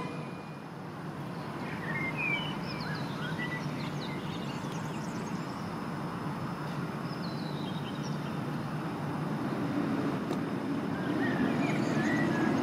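Red DB double-deck regional train approaching along the platform track: a low rumble that grows louder over the last few seconds. Birds chirp briefly several times.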